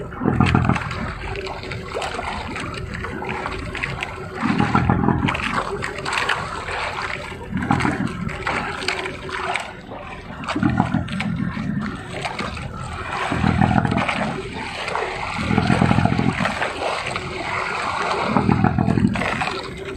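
Sea water splashing and rushing along the side of a small outrigger fishing boat, with a low rush swelling about every two to three seconds as the hull meets the swell.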